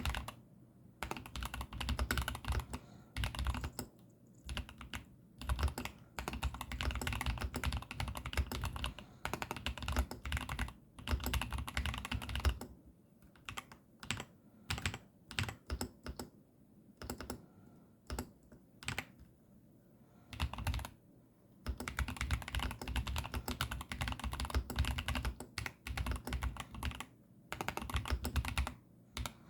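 Typing on a Keychron V10 Pro Max mechanical keyboard with pre-lubed Gateron banana tactile switches: quick runs of clacky keystrokes broken by short pauses, sparser through the middle and fast again toward the end.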